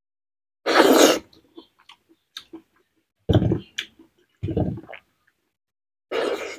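Close-miked eating sounds: mouth noises from chewing mouthfuls of rice and boiled cabbage eaten by hand, coming in four short bursts with silence between.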